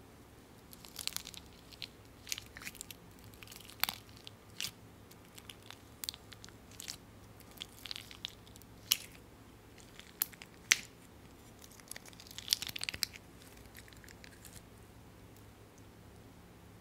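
Fingers poking and pressing into thick, chewy clear slime full of sequins and confetti in a plastic tub, making irregular sticky clicks and small pops, a cluster of them about twelve seconds in.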